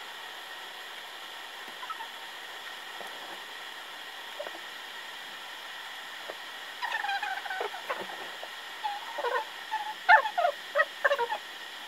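A steady low hiss, then from about seven seconds in, quiet indistinct talking in short phrases.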